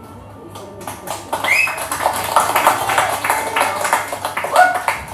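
Audience applauding, with two short cheering calls over the clapping, the first rising in pitch.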